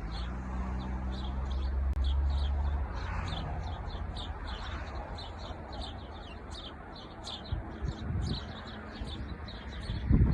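Birds in trees chirping, a continuous chatter of short, high chirps several per second. A low steady hum underneath stops about three seconds in, and a few low thumps come near the end.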